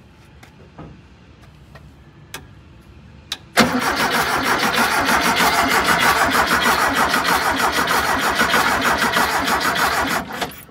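Air-cooled VW flat-four engine cranking on its starter without firing. After a few faint clicks, the cranking starts abruptly about three and a half seconds in, runs evenly for several seconds and stops near the end. No gas is reaching the carburettor from the new fuel pump.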